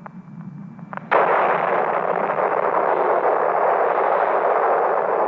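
Shock wave from the RDS-37 hydrogen bomb test hitting the town: after a faint low rumble, a sudden loud blast about a second in, followed by a sustained loud rushing noise.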